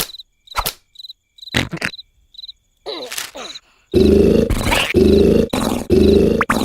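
Sparse cricket chirps and a few soft clicks in otherwise quiet night ambience. About four seconds in, a cartoon character starts snoring loudly and rhythmically, a little under one snore a second.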